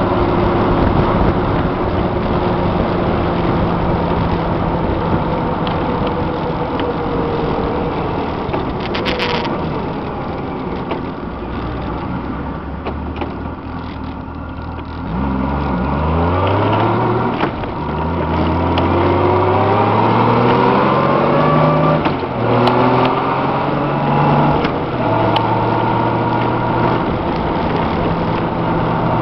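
Honda Gold Wing GL1500's flat-six engine with wind and road noise while riding: it eases off and slows, then accelerates hard through about four upshifts and settles to a steady cruise with a constant hum. The road noise comes from newly fitted Kenda Kruz tires, which the rider suspects of making a noise.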